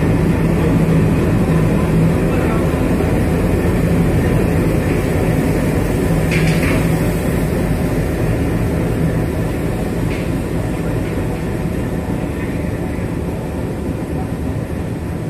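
WDM-3A diesel-electric locomotive running light, its ALCo V16 diesel engine running with a steady low drone as it rolls slowly along the platform. The sound grows a little fainter over the second half as it moves off.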